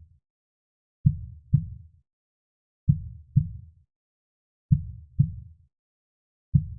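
Heartbeat sound: low double thumps, lub-dub, with the second beat of each pair about half a second after the first. The pairs come slowly, about one every 1.8 seconds, with silence between them.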